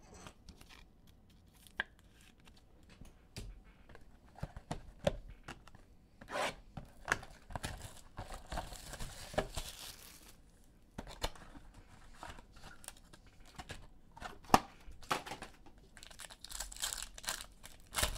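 A Panini Optic basketball cardboard box being torn open by hand, with scattered clicks and taps of cardboard and a longer stretch of tearing about halfway through. Near the end a foil card pack crinkles as it is taken out and handled.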